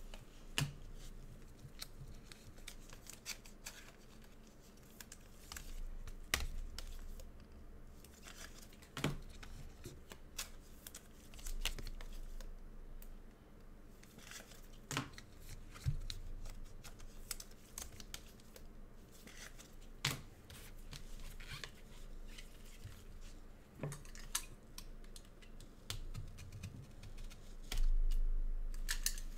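Hands opening football trading-card packs and boxes: wrapper crinkling and tearing, with scattered sharp clicks and taps from handling, and a louder low bump near the end.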